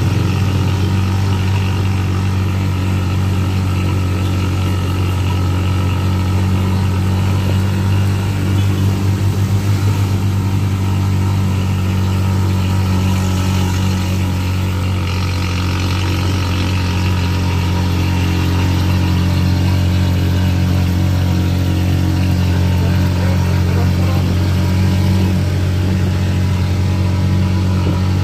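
Motorcycle engine of a motorela passenger tricycle running at a steady cruising speed, heard from inside the open-sided cab as a loud, even drone with road noise.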